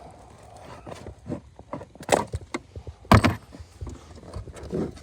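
Clicks and knocks of parts and tools being handled, with two louder knocks about two and three seconds in.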